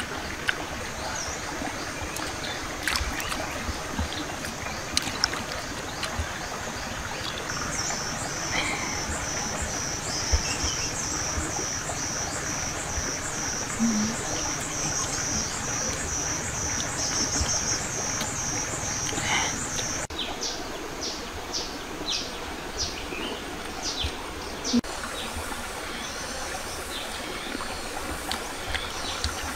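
Outdoor ambience: a steady hiss with an insect chirping in a high, even pulse of about two a second from about a quarter of the way in until about two-thirds through. Scattered short clicks and faint bird chirps are also heard.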